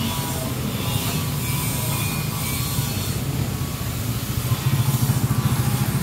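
Tracked excavator's diesel engine running steadily. About four and a half seconds in, a rapid, even pounding joins it.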